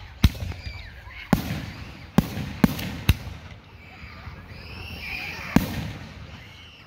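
Aerial fireworks going off: five sharp bangs in the first three seconds, then another loud bang near the end.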